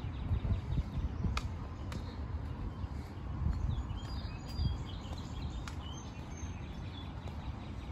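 Wind rumbling on the microphone and footsteps on an asphalt path while walking, with birds giving a few short chirps in the middle.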